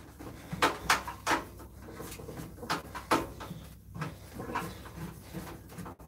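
Hand screwdriver working screws on a microwave's sheet-metal casing: irregular clicks and scrapes of metal on metal.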